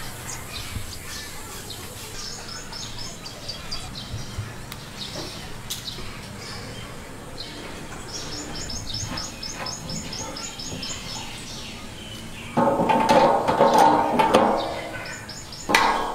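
A small bird chirps in two quick runs of repeated high notes, over light handling clicks. Later comes a louder rasping scrape of the blue PVC fitting being twisted into the threaded bung hole of the steel oil drum.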